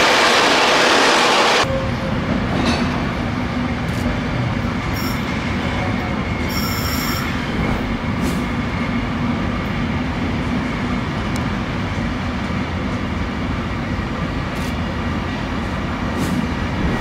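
Train moving through a station: a loud rushing noise cuts off suddenly near the start, then a steady rumble with a low hum, broken by two short high metallic squeals about five and seven seconds in.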